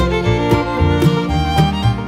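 Background instrumental music, fiddle-like and country in style, with a moving bass line and a steady beat of about two strokes a second.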